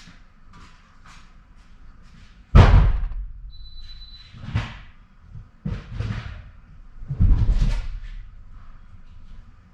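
A series of heavy thumps and bangs, four in about five seconds, the first the loudest and the last a longer rattling clatter.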